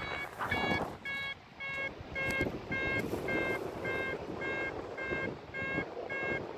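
Paragliding variometer beeping steadily, about two short beeps a second, the climb tone that signals the glider is rising in lift, over wind rushing on the microphone.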